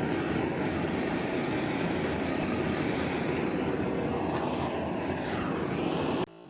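Handheld torch flame running with a steady rushing hiss, played over wet epoxy resin to pop surface bubbles. It cuts off suddenly near the end.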